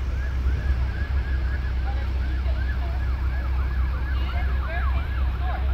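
Emergency-vehicle sirens in a fast yelp, quick rising-and-falling sweeps several times a second, growing stronger in the second half, over a steady low rumble.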